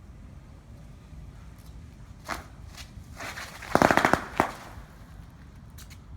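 Bicycle rigged as a "machine gun bike" letting off a quick run of sharp clacks lasting about half a second, with single clacks a little before and after it. It is very noisy.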